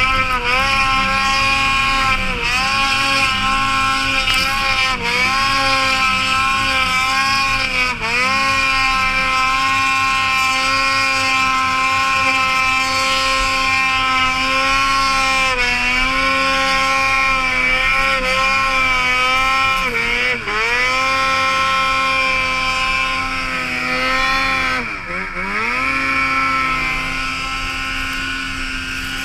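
Ski-Doo Gen 4 850 snowmobile with an RK Tek big-bore kit, its two-stroke engine held at high revs under load in deep powder. The revs dip briefly and climb back several times as the throttle is eased and reapplied, the deepest dip near the end.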